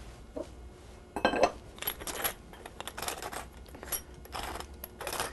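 Black pepper being dispensed over a plate of raw chicken pieces: a quick run of short strokes, about two or three a second, starting about a second in.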